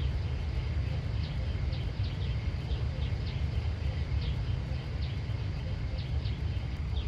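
Outdoor ambience: a steady low rumble with short high chirps, about one or two a second at uneven spacing.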